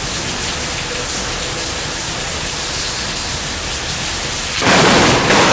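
Heavy rain and wind in a storm, a steady hiss, with a louder rush about four and a half seconds in that lasts under a second.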